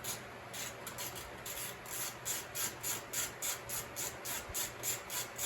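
Ratchet wrench being swung back and forth to back out loose 8 mm bolts, its pawl clicking in short buzzes about three times a second, over the steady hum of a shop fan.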